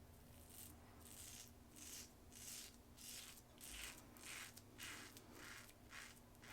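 Rockwell 6C safety razor scraping stubble through shaving lather in short, quick strokes, about two a second, faint and raspy.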